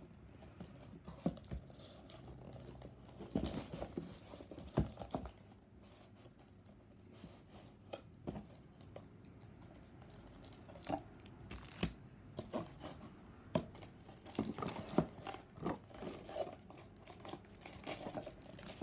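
Cardboard Pokémon Elite Trainer Box being handled and pulled apart: quiet, irregular knocks, scrapes and rustling as the lid and inner box slide and bump.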